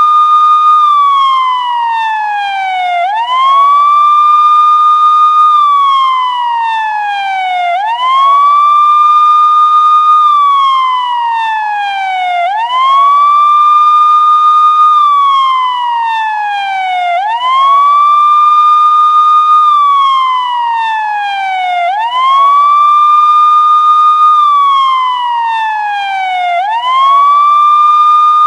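Police siren sound effect in a slow wail: the pitch climbs quickly, holds briefly at the top, then slides slowly down, repeating about every four and a half seconds, six times over.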